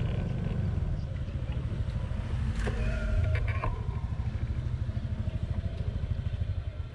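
Motorbike riding through city traffic: a steady low rumble of engine and road noise, with a short higher tone about three seconds in.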